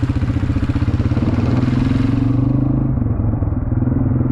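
ATV engine running under way, its low pulsing note turning steadier and rising a little about halfway through.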